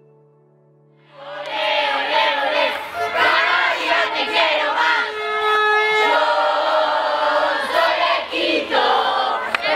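A music track's last note fades out, then about a second in a crowd of students starts singing and chanting together loudly, a dense mass of voices.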